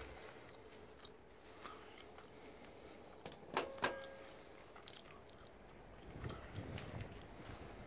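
Two sharp knocks about a quarter second apart, a little past the middle, each leaving a brief ring, over quiet room tone with scattered light ticks. This is handling noise from a hand-held phone jostled as it swings.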